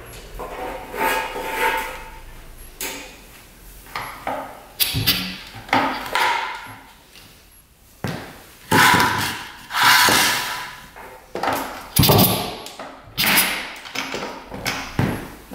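Kickstarter of a 1967 Yamaha YL1's 100cc two-stroke twin being kicked over again and again, about a dozen kicks, each a metal clack and a short rush as the engine turns over, without it firing.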